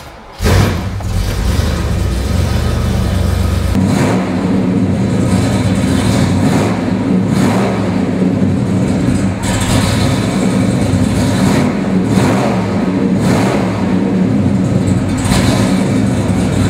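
Chevrolet 396 cubic-inch Mark IV big-block V8 with dual exhaust firing up about half a second in and idling, then being revved in a series of short blips while the car stands still.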